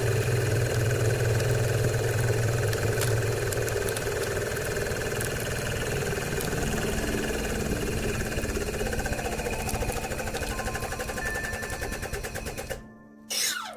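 Hydraulic press motor and pump running steadily while the ram squeezes a plastic-film bag of Skittles, with scattered crackles from the wrapper. The machine sound cuts off near the end, followed by a quick falling swoosh.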